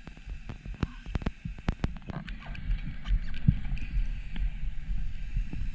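Underwater sound picked up through an action-camera housing: a low rumble with irregular sharp clicks, many in the first two seconds and fewer after. The rumble grows louder after about two seconds.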